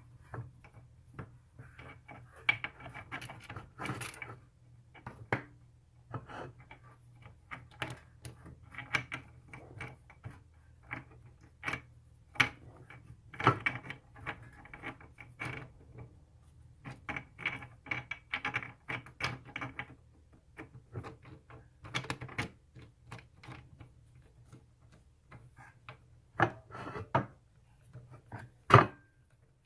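Irregular clicks and clinks of steel parts and hand tools as a flat-bar slide lock is fitted and screwed onto a mini lathe, with the sharpest click near the end, over a faint steady low hum.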